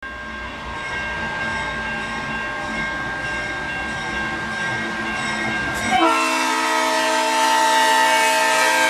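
Train rumbling past, then about six seconds in a loud train horn sounds and holds as a steady blast.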